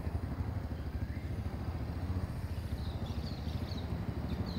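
Small motorcycle engine running at low revs with an even, rapid pulsing as the bike rolls slowly across grass, ridden by a learner.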